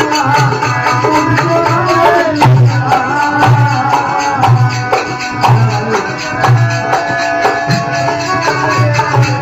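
Rajasthani Marwari folk bhajan music: a steady low drum beat with rattling percussion under sustained melodic notes.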